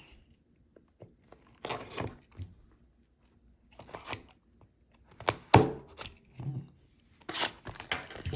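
Trading card box packaging being torn open by hand: several short tearing and crinkling bursts with quiet gaps between them, and a sharp click about five and a half seconds in.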